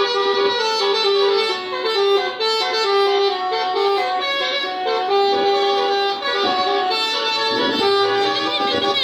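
Telolet bus horn, a set of musical air horns, playing a quick melody of stepped notes without a break.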